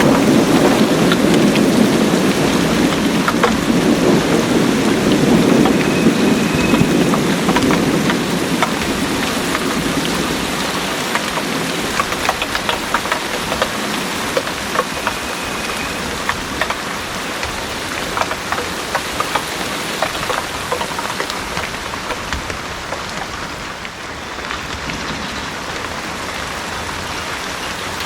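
Heavy rain pouring steadily, with scattered drops ticking close by. A low rumble of thunder fades away over the first several seconds, leaving the rain.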